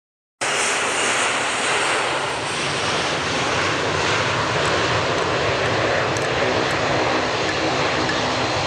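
Jet engines of an Airbus A330 tanker (A330-200) on its landing approach: a steady rush that cuts in suddenly about half a second in and holds level.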